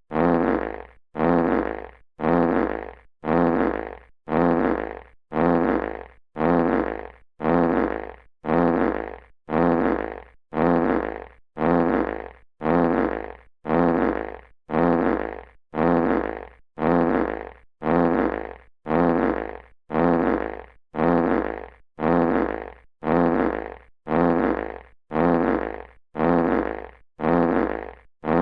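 Classic fart sound effect on a loop: the same short fart repeated a little more than once a second, each one loudest at its start and fading away before a brief gap.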